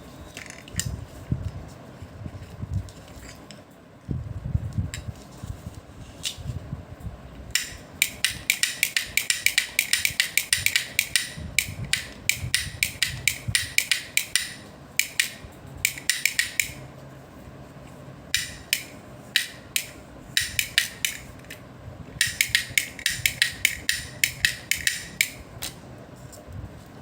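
Homemade drum toy car of cardboard and bamboo sticks being rolled, its sticks beating the drum in rapid runs of taps that start and stop in bursts of a few seconds. Softer knocks come before the first run.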